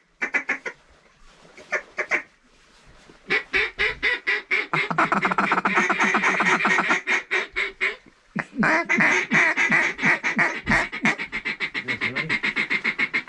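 Mallard duck calls blown in rapid strings of quacks and chuckles, a couple of short bursts and then two long runs of several seconds each, calling to circling mallards.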